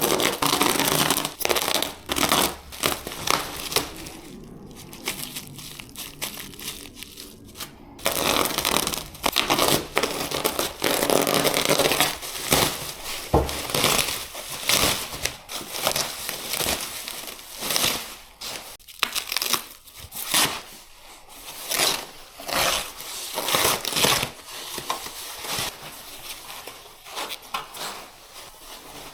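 Packaging being torn open and crumpled while parts are unboxed: wrapping crinkling and tearing in irregular rustling handfuls, with an abrupt change in the sound about eight seconds in.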